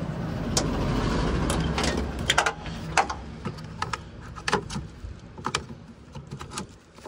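Clicks and knocks of a truck's trailer air hose couplings and ABS cable being handled and hooked onto their holders on the back of the cab. A rushing hiss and a low hum run under the first two seconds or so, then die away.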